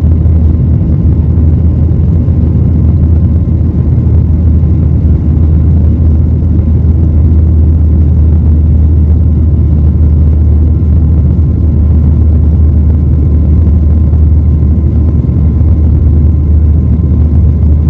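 Boeing 737 MAX 8 jet engines running during takeoff, a loud, steady low rumble with a faint thin whine above it.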